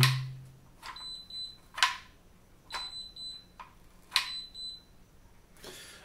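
REVOLO smart deadbolt's keypad sounding short, high electronic beeps in three groups, with sharp clicks and knocks from the unit being handled between them.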